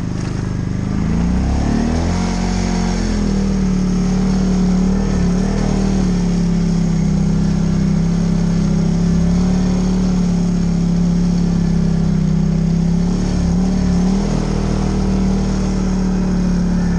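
TGB Blade 550 4x4 ATV engine accelerating over the first few seconds, then running at a steady speed under way, easing off briefly near the end.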